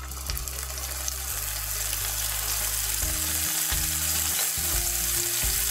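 Sea scallops searing in hot olive oil in a nonstick frying pan: a steady sizzle that slowly grows louder as a second scallop is laid in.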